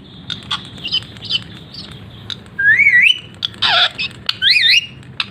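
Ringneck parakeet (rose-ringed parakeet) calling. It starts with short clicks and chirps, then gives a whistle that rises and falls. A harsh squawk comes about halfway through, and two wavy whistles follow near the end.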